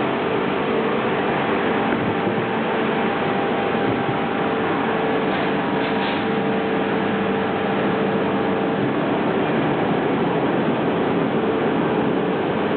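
O-M vertical lathe running: a steady mechanical noise with a steady whine that stops about nine seconds in.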